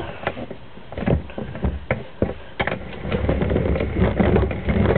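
Beyblade top (Shinobi Saramanda SW145SD) launched into a red plastic stadium. A few sharp clicks and knocks as it lands and strikes the bowl give way, about three seconds in, to a steady whirring rattle as it spins on the plastic.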